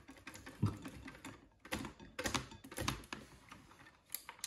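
Scattered light clicks and knocks of things being handled on a kitchen counter, coming at irregular intervals with a busier cluster in the middle.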